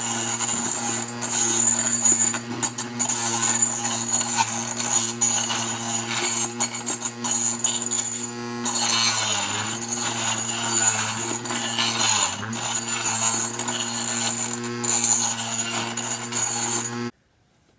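Bench grinder running and grinding metal, a steady motor hum under a harsh scraping hiss. The motor's pitch sags briefly twice as the work is pressed against the wheel. The sound cuts off suddenly near the end.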